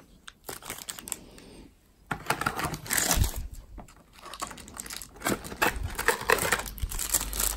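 Plastic packaging crinkling and a cardboard box being handled while unpacking, as irregular rustles and small clicks and knocks that start about two seconds in.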